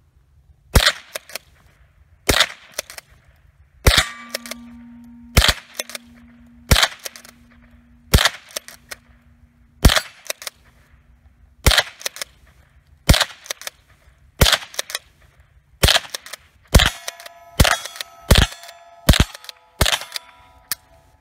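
Remington 572 Fieldmaster pump-action .22 rifle firing supersonic .22 LR, about seventeen sharp shots, each followed by the clack of the pump being worked. The shots come about one every second and a half, then quicken to under a second apart in the last few seconds. Steel targets ring after some of the hits.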